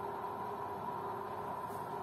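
Quiet room tone: a steady faint hiss and hum, with no distinct sound events.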